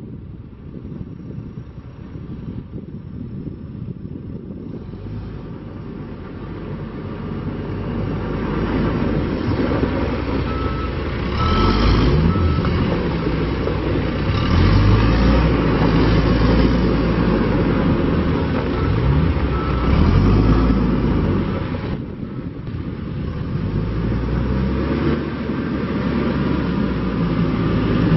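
Diesel engine of a 2011 John Deere 410J backhoe loader running and revving up and down as the machine is worked, getting louder from about a third of the way in. A reversing alarm beeps a few times around the middle.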